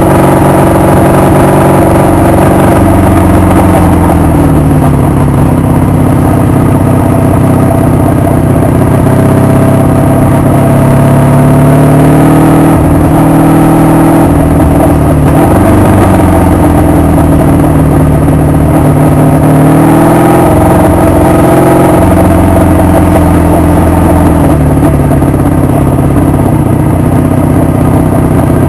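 Honda VF750's V-four engine running on the road, loud, its pitch rising and falling with the throttle: it climbs around ten seconds in and again around twenty seconds in, easing back after each.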